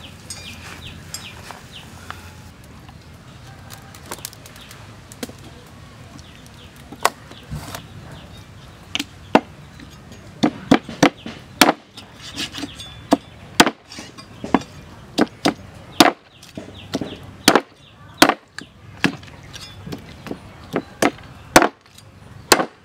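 Cleaver chopping pig leg skin and fat on a wooden chopping block: sharp, irregular knocks, a few at first about seven seconds in, then coming quickly from about ten seconds on.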